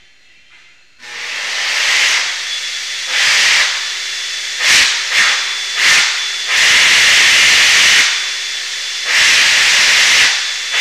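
Loud bursts of hissing, about half a dozen in a row, the longest about a second and a half, over a faint steady high tone.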